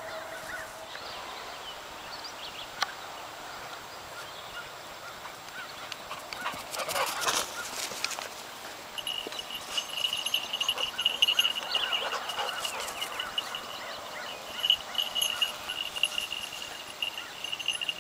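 A flock of American crows calling and cawing in repeated short calls as they scatter. A loud rushing burst of noise comes about seven seconds in, and a steady high ringing tone joins about halfway through.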